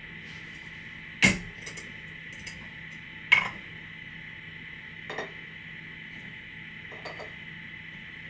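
Kitchen dishes and utensils being handled: four separate knocks and clinks a couple of seconds apart, the first two loudest, over a faint steady hum.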